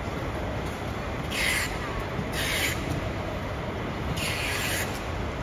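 Steady background noise of a busy airport terminal hall, with three short hissing rustles over it.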